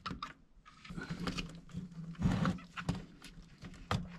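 Scattered small clicks and scrapes of a hand tool gripping and working the steel axle pins out of an RC truck's plastic front hub.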